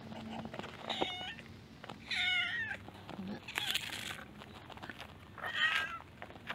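A cat meowing four times, short wavering calls a second or more apart, the second one the longest, as food is set down for it.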